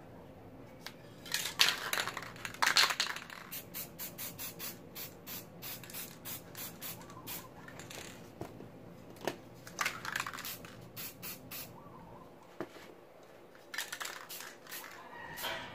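Aerosol spray paint can hissing in bursts: two longer sprays near the start, then a run of quick short taps about three a second, then more sprays in the middle and near the end.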